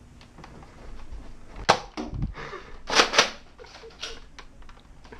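Nerf foam-dart blasters firing in a small room: a sharp snap, then two louder snaps in quick succession about three seconds in, with a low thump between them and lighter clicks after.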